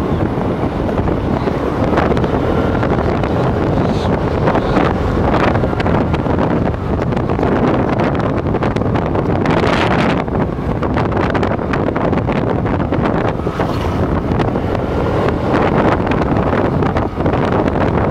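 Wind buffeting the microphone on a moving motor scooter, mixed with the scooter's running and road noise; a steady, loud rush.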